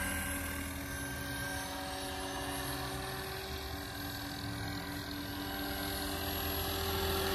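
Roban 800-size UH-1D Huey scale RC helicopter, electric-powered, flying: a steady hum and whine from its motor and rotor. It dips a little in the middle and grows louder again near the end.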